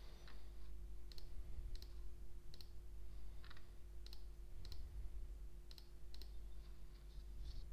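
Computer mouse clicking a dozen or so times at irregular intervals, over a faint steady electrical hum.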